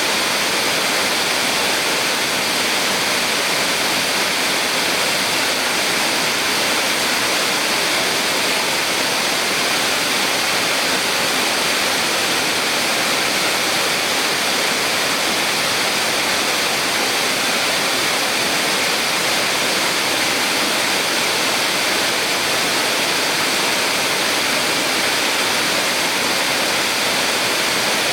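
Small waterfall on a mountain stream, water pouring and splashing in a steady, unbroken rush.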